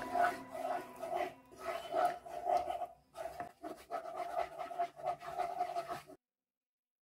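Wooden spatula stirring thick white sauce in a non-stick wok, with a rhythmic stroke sound about twice a second that stops abruptly near the end.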